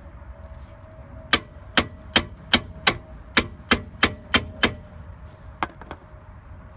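Flex-head ratchet clicking in short swings as it works a 13 mm brake caliper bolt: about ten sharp metallic clicks at roughly three a second, then two fainter ones.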